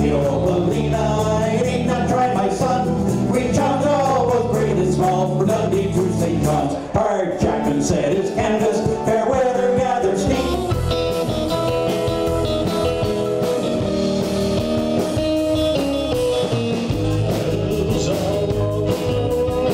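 Live band playing with guitars and a man singing. About ten seconds in, it cuts to a different song.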